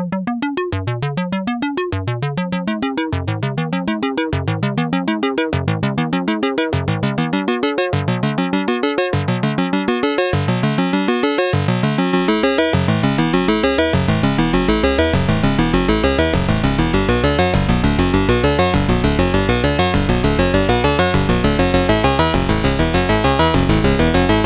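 Radikal Technologies Delta CEP A synthesizer module playing a repeating note pattern, each note sweeping upward. The sound grows steadily brighter and busier, with faster, denser notes from about halfway, as the waveform and filter settings are explored.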